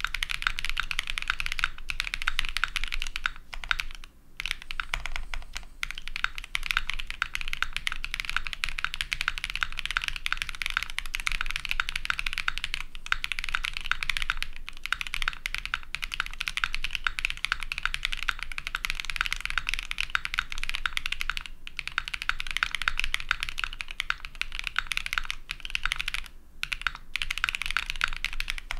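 Fast, continuous typing on a TKD Cycle7 mechanical keyboard built with linear switches, an aluminium plate and plate and case foam: a rapid stream of key clacks, broken by a few brief pauses.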